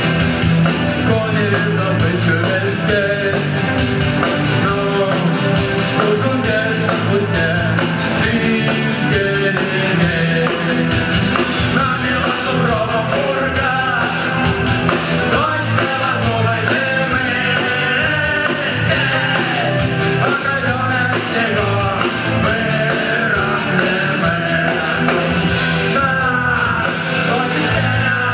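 Rock band playing live with singing, electric guitar and drums keeping a steady beat.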